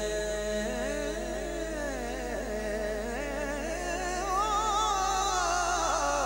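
A man singing a devotional Punjabi naat in a long, drawn-out melismatic line with wavering, ornamented pitch that climbs higher about four seconds in.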